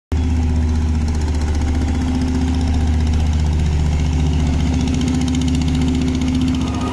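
An engine idling steadily, an even low rumble that cuts in abruptly at the start.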